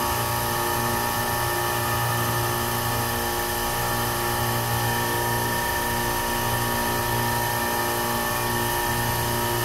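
A machine running steadily, a constant hum with a fixed whine above it and no change in speed.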